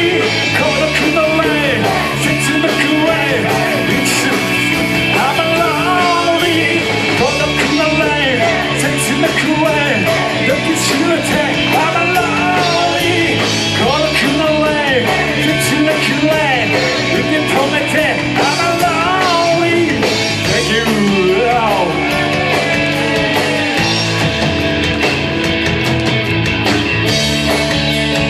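Rock band playing live with a dense, steady backing, under a lead melody line full of pitch bends and vibrato.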